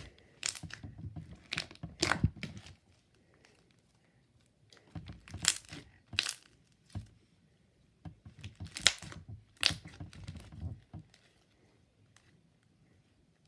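Slime being squished and stretched by hand, making sticky crackling and popping sounds in three bouts of a couple of seconds each.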